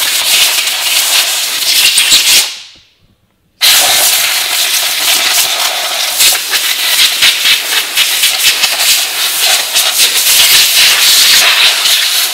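Compressed-air blow gun blasting sawdust and debris out of a chainsaw with its cover off: a loud, fluttering hiss of air that stops after about two seconds, then starts again a second later and keeps going.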